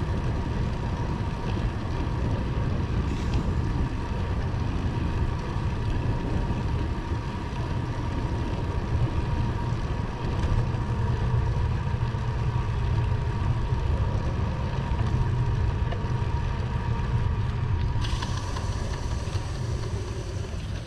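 Wind buffeting the microphone of a camera on a moving bicycle, together with road noise, making a steady low rumble with a faint steady whine underneath.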